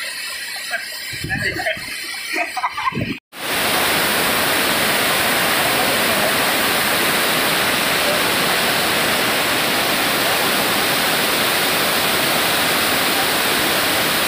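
Water pouring over a weir's concrete spillway: a loud, steady rush of falling water that starts abruptly just after a brief cut about three seconds in.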